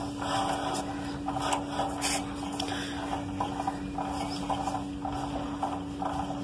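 Honda motorcycle rear wheel spinning in its drum brake: a steady hum with a soft haze and faint pulses about twice a second, and no squeak or rattle from the brake shoes. It is the sign that the brake-shoe spring noise has been cured by refitting and greasing the shoes.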